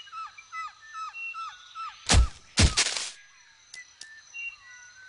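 A small bird chirping in a quick run of short falling notes, cut across about two seconds in by two loud, short noisy bursts, a thud-like hit and a longer rush, before scattered chirps resume.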